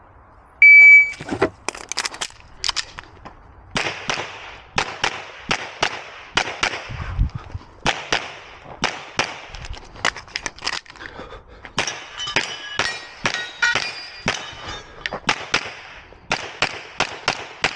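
A shot timer's start beep, then rapid semi-automatic pistol fire: dozens of shots, many in quick pairs, as a stage is run. Past the middle, metallic pings ring out between the shots from hits on steel targets.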